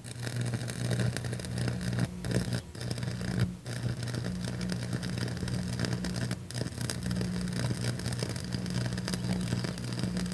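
Stick (shielded metal arc) welding: the electrode's arc crackling and hissing steadily as a bead is laid, over a steady low hum. The arc breaks off for an instant a few times, most often in the first four seconds.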